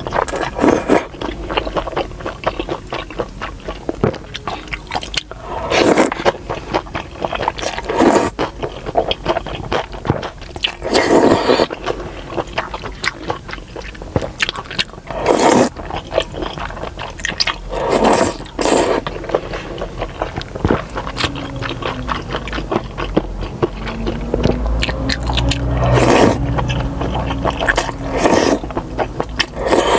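A person slurping wide, slippery liangpi noodles coated in chili oil, with a loud wet slurp every few seconds and quieter chewing between.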